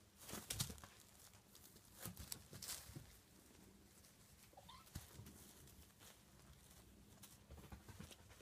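Faint scuffling and rustling of two kittens play-fighting on a cloth and a rag rug, with soft knocks now and then. About halfway through comes one brief, faint rising squeak.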